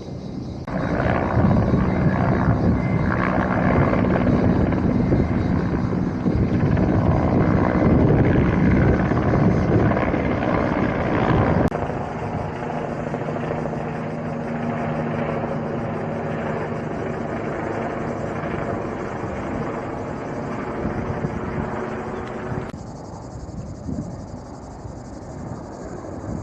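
Firefighting helicopter flying close, its rotor and turbine loud and steady. The sound changes abruptly about 12 seconds in to a steadier, somewhat quieter helicopter drone, and falls away near the end.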